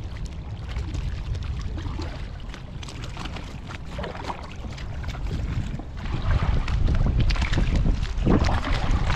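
Wind buffeting the microphone, stronger from about six seconds in, with the splashes of paddle strokes from an inflatable kayak moving through the water.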